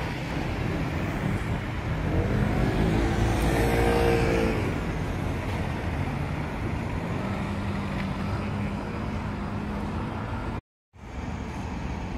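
Road traffic: a steady rumble of cars, with one motor vehicle passing and its engine note swelling about three to four seconds in. The sound cuts out completely for a moment near the end.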